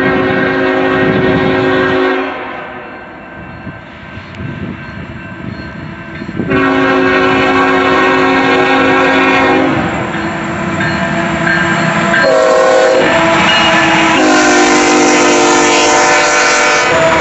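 Nathan K5HL five-chime air horn on a CSX ET44AH diesel locomotive sounding a sequence of long, long, short and long blasts, the pattern of a grade-crossing signal. The horn grows loud as the locomotive nears and passes close. Between blasts the diesel engine and the wheels of the loaded coal train rumble.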